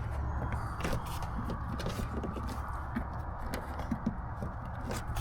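Rubber wiring grommet being pressed back into its hole by hand, giving scattered small pops and clicks as it seals up, over a steady low hum.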